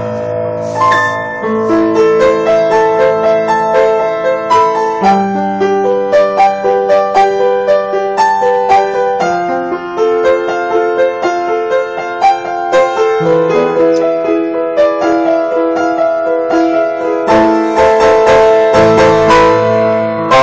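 Piano playing a tune: a melody over chords and a bass line, continuous and loud, getting busier and louder near the end.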